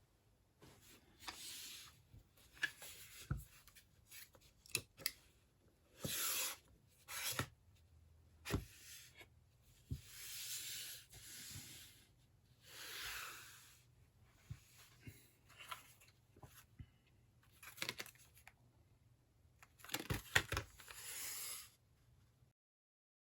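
Repeated tearing and scraping noises, each lasting about a second, mixed with small sharp clicks, from something being handled at close range.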